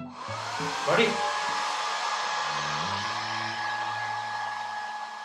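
Handheld hair dryer switched on, its motor whining up to speed within about a second, then blowing hot air steadily with an even hiss and a constant whine.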